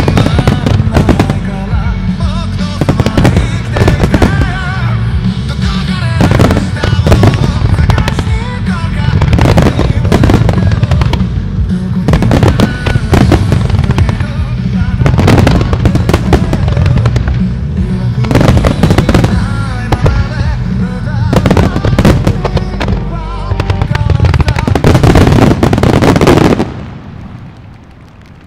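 Wide starmine fireworks barrage set to music: rapid, overlapping shell and mine bursts over a continuous music track. The barrage and music cut off suddenly near the end, leaving only a much quieter background.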